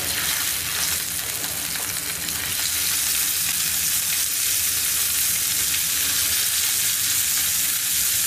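Duck breast fillets sizzling in their own rendered fat in a frying pan over high heat, searing on the second side; a steady hiss that gets a little louder a couple of seconds in.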